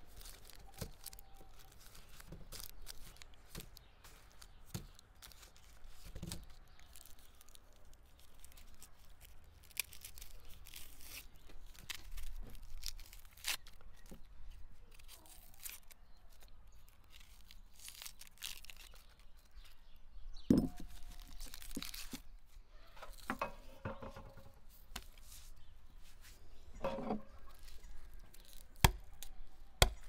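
Onions being peeled by hand with a kitchen knife: dry onion skins tearing and crackling as they are cut and pulled away, with small knife scrapes. There are a few louder knocks, the loudest about twenty seconds in.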